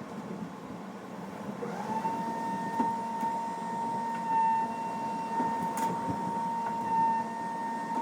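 A motor spins up about two seconds in and holds a steady high whine over a low hum.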